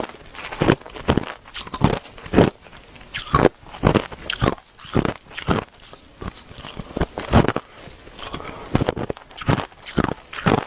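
Hard ice being bitten and crunched between the teeth, close up: a run of sharp, crackling crunches about once or twice a second.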